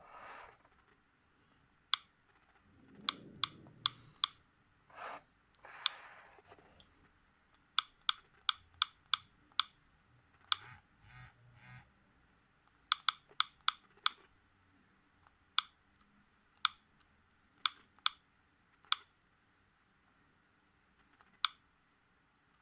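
Sony Ericsson W580i phone keypad clicking as its buttons are pressed, in short runs of quick presses with pauses between, along with some soft handling rustle.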